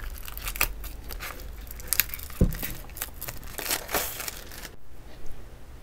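Clear plastic shrink-wrap being torn and peeled off a boxed album, crinkling and crackling irregularly, with one dull thump about two and a half seconds in. The crinkling thins out near the end.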